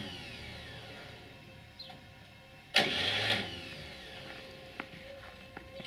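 Belarus 820 tractor's electric starter cranking the cold diesel in one short burst about three seconds in, then spinning down with a falling whine. The engine does not fire. A falling whine from the previous crank is fading at the start.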